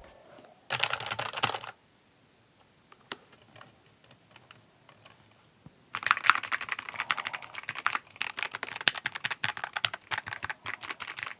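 Keychron Q6 HE mechanical keyboard with magnetic Hall-effect switches being typed on: a short burst of keystrokes about a second in, a few scattered key presses, then several seconds of fast, continuous typing.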